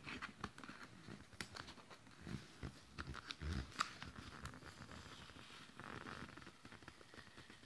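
Faint handling of a cardboard phone box: scattered light clicks and scrapes as fingers pick at a seal sticker on its top edge, with a low bump about three and a half seconds in.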